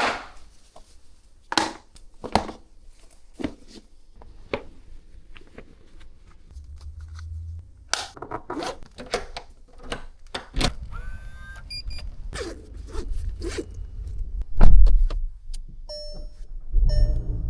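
Scattered clicks, knocks and rustles of close handling, with a low rumble joining about halfway through and a few short repeated tones near the end.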